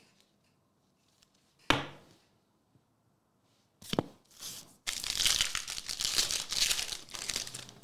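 A trading-card pack's wrapper being torn open and crinkled for about three seconds in the second half, after two sharp taps.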